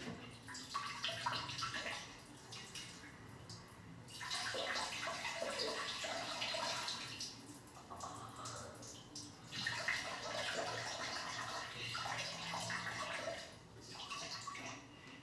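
A stream of urine splashing into a toilet bowl, stopping and starting in spells of a few seconds.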